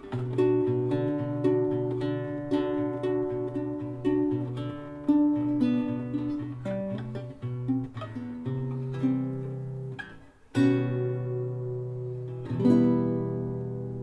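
Background music on a plucked guitar playing a melody, which breaks off briefly about ten seconds in, then two chords about two seconds apart that ring out.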